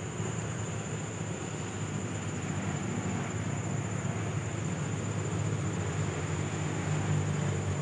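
Low, steady rumble of a distant engine, slowly growing louder, with a constant high-pitched whine above it.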